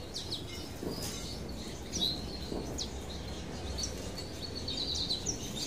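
Small finches chirping: short high chirps and quick sweeping notes scattered throughout, with a rapid twittering run near the end, over a low steady hum.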